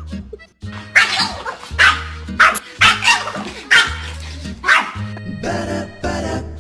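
A dog barking, about six sharp barks spaced well under a second apart, over background music with a steady bass line.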